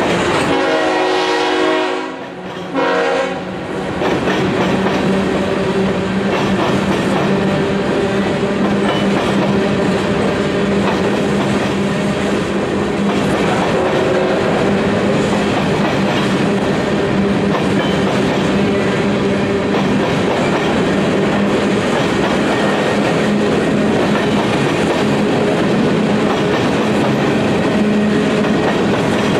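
A long freight train of coal cars rolling past, with steady wheel-on-rail noise throughout. Near the start a train horn sounds, a long blast and then a short one.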